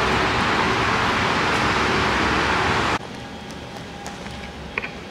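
A steady, even noise that cuts off abruptly about three seconds in, giving way to quieter indoor room sound with a few faint clicks.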